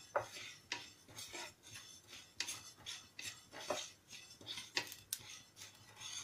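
Wooden spatula stirring fennel, fenugreek and nigella seeds as they roast in a non-stick pan: repeated scraping strokes with the dry rustle of the seeds, about one or two a second.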